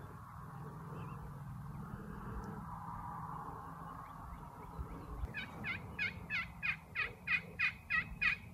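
Turkey yelping: a run of about ten quick notes, each dropping in pitch, starting about five seconds in and growing louder toward the end.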